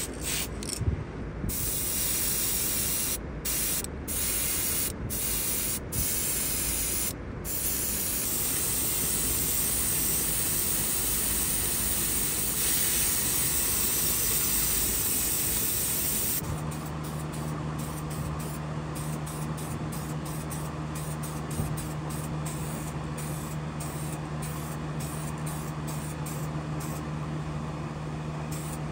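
Airbrush spraying paint onto small model-car parts: a hiss in several short bursts with brief pauses, then one long unbroken spray. About halfway through, the hiss turns steadier and a constant low hum sounds under it.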